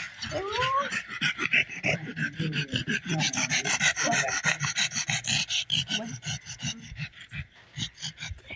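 A dog at play on a rug makes a rapid run of rasping, rubbing sounds, with a short rising squeal about half a second in.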